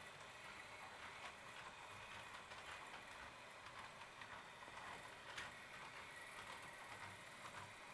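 Faint running of an HO-scale model train: light, irregular clicking and ticking of its wheels over the track, with a sharper click about five and a half seconds in.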